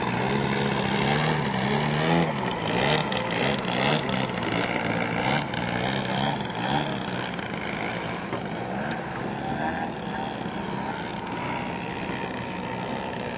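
Engines of two radio-controlled model airplanes droning overhead, their pitch rising and falling as they pass and manoeuvre, louder in the first half.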